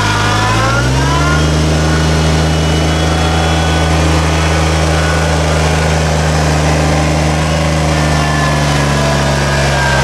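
Kubota compact diesel tractor running under way. About a second in, the engine revs up, then holds steady at the higher speed, with a faint whine above the engine note.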